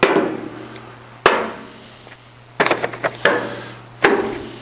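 Small strong magnets snapping onto the steel skin of a Jaguar XK150 door through a paper pattern: about five sharp metallic clacks roughly a second apart, each dying away briefly, with a quick run of clicks midway.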